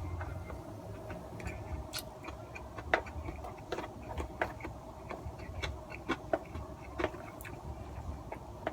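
Small clicks and taps of chopsticks against a cup yakisoba container at irregular intervals during eating, over a faint steady hum.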